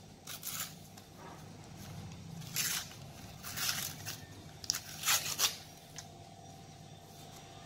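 A paper cupcake liner being peeled off a baked cupcake by hand: several short crinkling, tearing rustles of paper.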